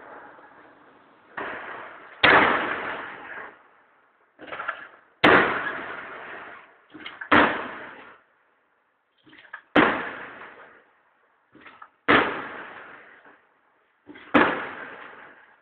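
Aerial firework shells bursting: about six loud bangs a couple of seconds apart, each with a smaller pop just before it, each dying away over about a second.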